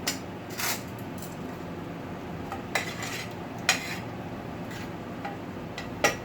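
A cooking utensil clanking and scraping against a pot as rice noodles are stir-fried, with about five sharp knocks spaced irregularly over a steady low hiss.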